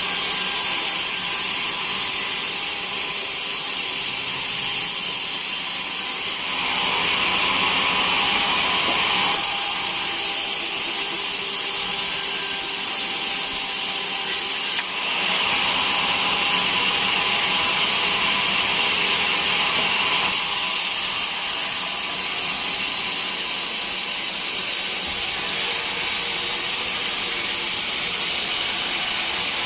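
Band sawmill blade cutting through a teak log: a loud, steady sawing noise that dips briefly about six and fifteen seconds in.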